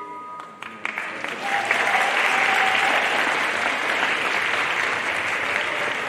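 The last sustained note of the dance music fades out, then audience applause breaks out about a second in and carries on steadily.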